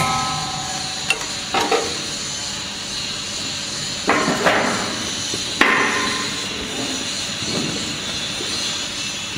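Hexagonal wire netting machine running, a steady mechanical rattle broken by irregular sharp metallic knocks, with the loudest clanks about four and five and a half seconds in.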